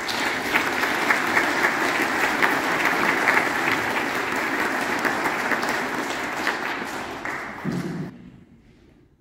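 Congregation applauding: dense clapping that holds steady, then dies away about eight seconds in.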